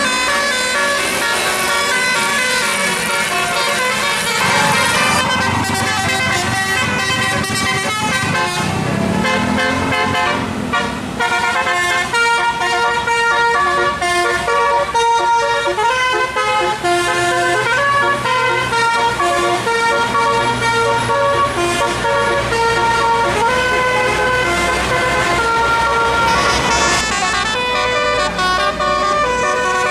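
Bus telolet musical air horn of the Basuri type, with roof-mounted trumpets, playing a fast melody of short chord-like notes, with a vehicle engine running low underneath.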